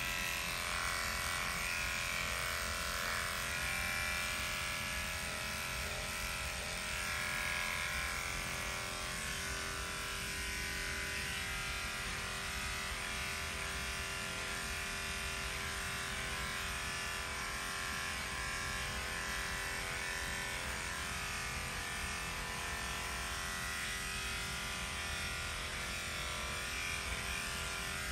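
Handheld electric dog grooming clippers running steadily with an even buzz while clipping a dog's coat.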